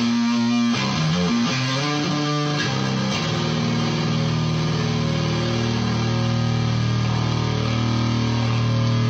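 Electric guitar played through a FuzzCo fuzz pedal and amp: a short riff of quickly changing notes, then a thick fuzzed chord struck about three seconds in and left to sustain.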